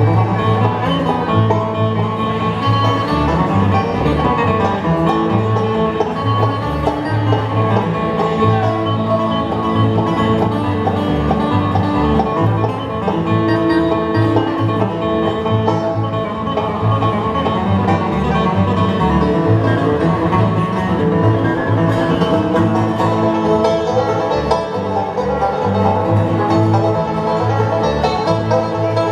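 Live bluegrass band playing an instrumental passage: banjo picking over guitar, with a bass line pulsing steadily underneath.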